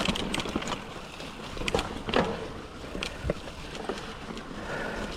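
Mountain bike, a 2007 Cannondale Rush, rolling over a rooty, muddy trail: steady tyre noise with scattered knocks and rattles as it goes over roots.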